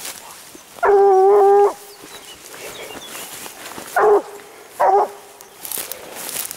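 Leashed scent hound baying on the trail of a wild boar, giving tongue on the scent: one long drawn-out bay about a second in, then two short bays around four and five seconds in. Brushing and rustling through tall grass near the end.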